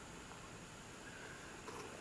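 Faint handling sounds as a cat pokes its face and paws at the camera, with a soft click about three-quarters of the way through.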